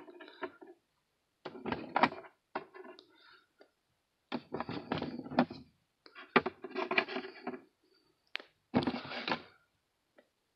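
Handling noise: knocks and rustles in about seven short bursts, with dead silence between them.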